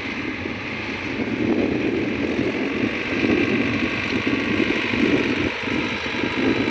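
Deutz-Fahr tractor's diesel engine running steadily under load as it pulls a rotavator through tilled soil, growing gradually louder.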